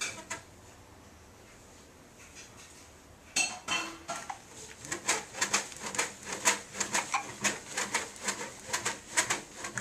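Baby doorway jumper being bounced: its metal clamp and spring fittings clink and knock. It starts with a few knocks about a third of the way in, then turns into a quick, even clinking of about three to four knocks a second.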